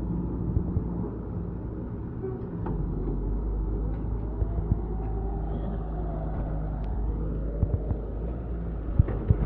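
Diesel engine of heavy earthmoving machinery running steadily, with a few sharp knocks and clanks, most of them in the second half.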